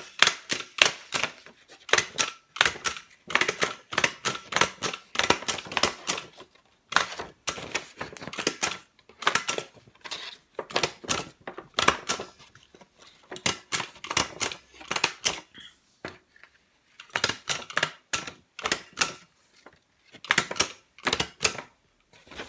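A stapler pressed down again and again as fast as possible, driving staples into a piece of card: quick runs of sharp clacks with a few short pauses between runs.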